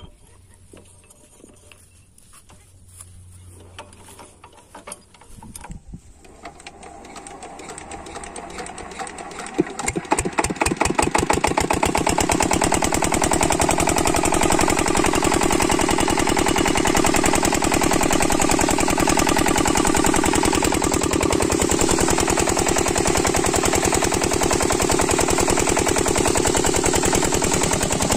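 An 8 hp single-cylinder diesel water-pump engine starting: after a few quiet seconds of faint clicks it catches about six seconds in, and its firing beats come faster until it settles into steady running about twelve seconds in. Water then rushes out of the pump's delivery pipe, a sign the pump has primed and is drawing water.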